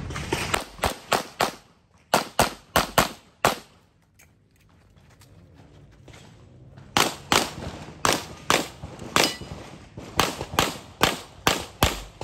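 Rapid handgun shots, mostly in quick pairs, in a competition string of fire. A pause of about three seconds falls in the middle, then the pairs resume.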